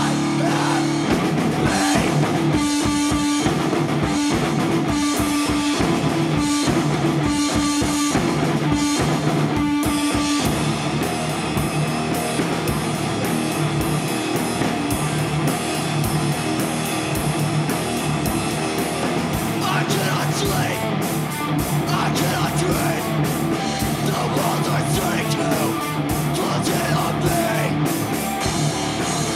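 Punk rock song with distorted electric guitar and drum kit. For about the first ten seconds the band plays choppy stop-start hits, then it breaks into steady full-band playing.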